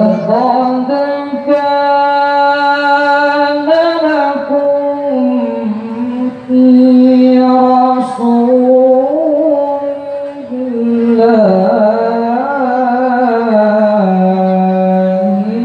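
Young male qari reciting the Quran in the melodic tilawah style into a microphone: long, ornamented held phrases that glide up and down in pitch, with short breaths between them.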